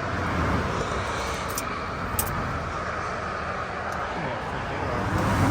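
Steady highway traffic noise from vehicles passing close by, with a few light, sharp clicks about one and a half, two and four seconds in.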